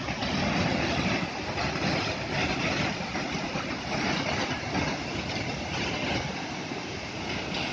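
Steady rushing roar of a large waterfall, Dudhsagar Falls' water pouring down the cliff into its plunge pool.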